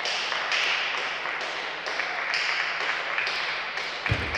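Table tennis rally: the celluloid-type ball clicking off bats and table in a steady rhythm of about two strikes a second, with a heavier thump near the end.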